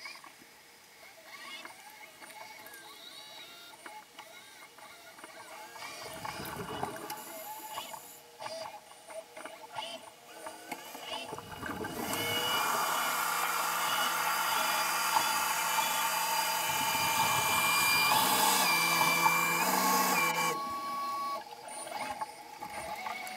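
Electric thrusters of an underwater robot running, heard underwater as a mix of steady motor tones that step up and down in pitch. Faint at first, much louder through the middle and later part, and dropping off a few seconds before the end.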